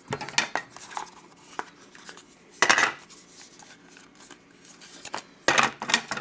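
Trading cards being handled and slid against each other, with scattered light clicks and two short louder scrapes, about a third of the way in and near the end.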